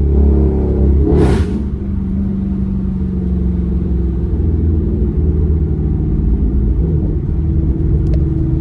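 Car engine and exhaust under hard acceleration, with a short, sharp rasp about a second in, then a steady low drone whose pitch eases down slightly.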